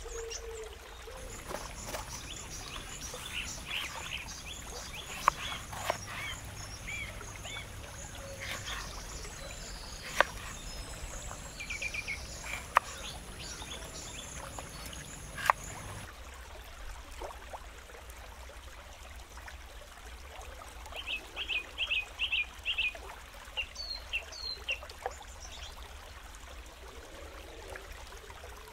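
Outdoor ambience with an even hiss and birds chirping, including a quick run of about six chirps some three-quarters through and two higher chirps just after. A few sharp clicks or knocks sound in the first half.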